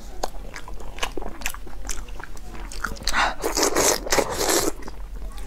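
Close-up eating sounds of a piece of steamed fish with chopped chili: wet smacks and bites, with a longer, louder stretch of mouth noise about three to four and a half seconds in.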